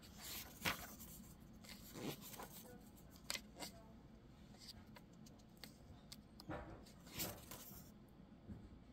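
Pages of a graphic novel being turned and handled by hand: faint, scattered paper swishes and soft taps at irregular intervals.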